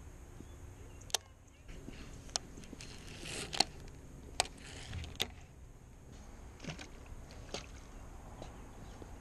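Sharp scattered clicks and knocks from a baitcasting rod and reel being handled, and a soft splash as the rod drops into the shallow creek.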